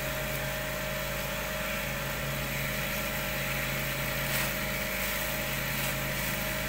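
Gas-heated cotton candy machine running steadily: an even motor hum with a steady hiss over it, the burner flame set just right.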